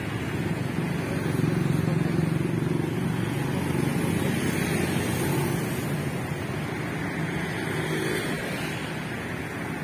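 Street traffic: a passing motor vehicle's engine swells over the first two seconds or so and then eases off, over steady road noise.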